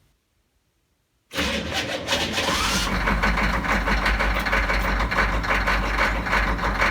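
Food truck's diesel engine starting about a second in and settling into running, with the throttle held slightly open; a cold start, its first since midwinter, after the glow plugs were warmed.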